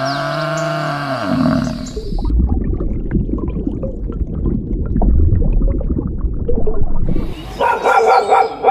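A large animal's deep roar dies away over the first two seconds, followed by a crackling, rumbling noise. Near the end, a dog starts barking in quick repeated barks.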